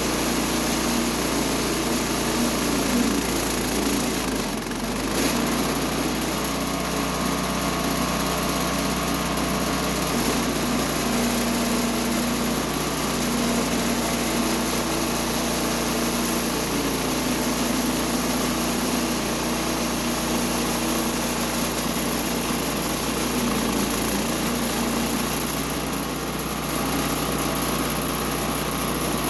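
Woodland Mills HM126 portable band sawmill running steadily, its small gas engine driving the band blade through a pecan log. The engine note dips briefly about five seconds in and again near the end.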